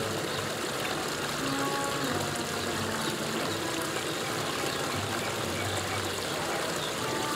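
Small waterfall splashing steadily into a pond, with faint slow sustained music notes underneath.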